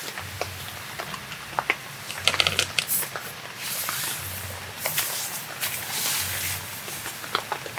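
Scattered light clicks and crackly rustling, as of things being handled, with a burst of clicks about two to three seconds in and two longer stretches of rustling around the middle.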